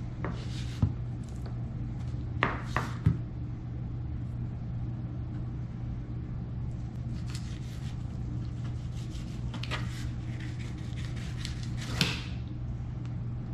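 A knife filleting a mangrove snapper on a cutting board: scattered scrapes and a few sharp knocks, over a steady low hum.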